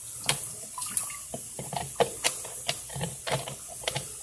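Ice in a freezer compartment thawing under hot-water steam: irregular sharp cracks and pops with dripping water over a soft watery hiss.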